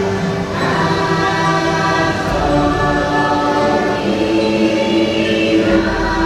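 Dark-ride soundtrack: a choir singing long held notes over music, the pitch shifting every second or two.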